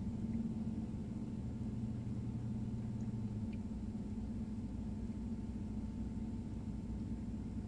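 Steady low hum of an idling engine, heard from inside a stopped car's cabin.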